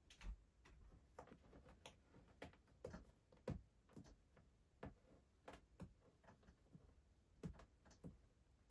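Faint, irregular clicks and light taps, about two dozen over several seconds, with no steady rhythm; two are a little louder, about three and a half and seven and a half seconds in.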